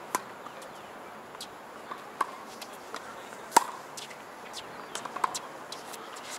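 Sharp pops of tennis balls struck by rackets and bouncing on a hard court, several spread across the stretch, the loudest about three and a half seconds in.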